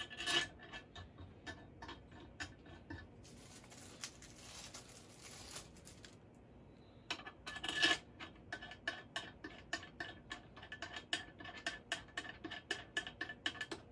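Small, faint clicks and handling noise as the resin vat's two retaining bolts are taken from a plastic parts bag and screwed in to lock the vat in place. A soft rustle comes a few seconds in, then a quick run of small clicks while the bolts are turned in.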